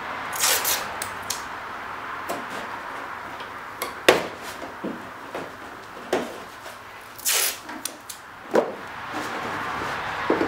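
Masking tape pulled off the roll and torn, twice (near the start and about seven seconds in), with a few short sharp knocks of hands and tools on the wooden hull over a steady background hiss.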